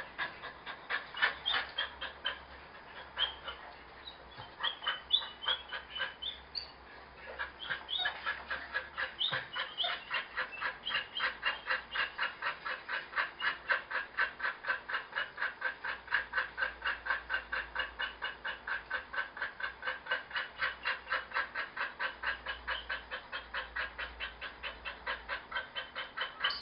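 A dog panting steadily, about four breaths a second, with high squeaky whimpers over the first several seconds.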